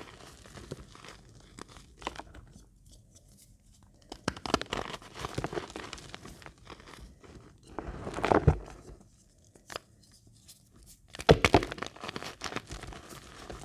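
Crumbled reformed gym chalk squeezed and crushed in the palm: dry crunching and crackling in bursts, loudest about eight seconds in and again near eleven seconds, with quieter gaps between squeezes.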